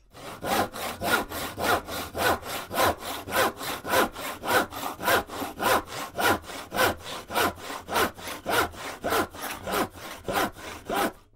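Hand saw cutting timber in steady back-and-forth strokes, about three a second, cutting half-lap joints for a wooden frame.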